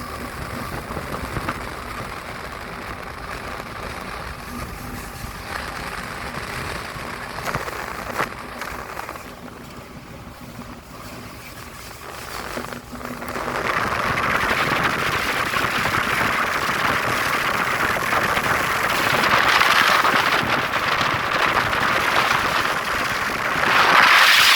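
A train passing: a steady background hum at first, then a loud rushing of wheels on rails that builds from about halfway through and is loudest near the end.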